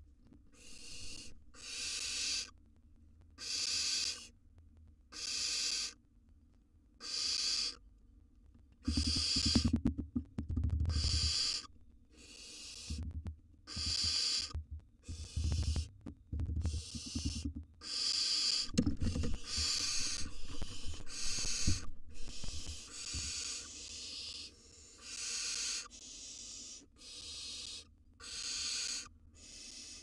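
Barn owl nestlings giving their rasping, hissing snore calls, the sound owlets make to beg for food, repeated about once a second. Low thumps come in between at a few points.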